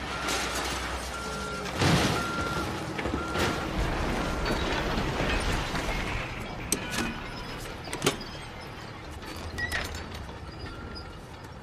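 Construction site noise: heavy machinery running under a vehicle's reversing beeper that beeps about once a second, with a few sharp clanks in the second half.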